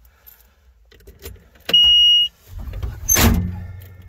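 Bobcat 763 skid steer at key-on: a single loud, steady, high warning beep of about half a second, then a low rumble with a sharp clunk as the diesel engine is turned over to start.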